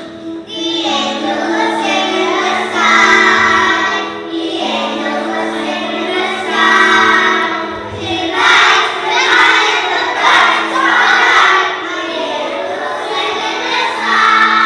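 A choir of young children singing a song together over instrumental accompaniment that holds steady low notes underneath.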